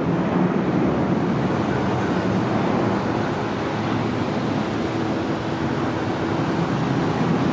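Jet engines of a Boeing 737-800 freighter, CFM56-7B turbofans, at takeoff power: a steady, loud rumble.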